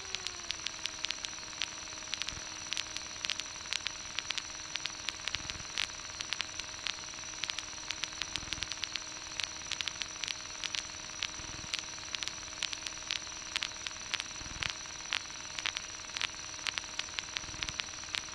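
Intercom audio from a Bushcat light sport aircraft: a steady hiss with frequent crackling static clicks over a steady engine hum. The hum dips slightly in pitch just after the start as the engine settles to idle.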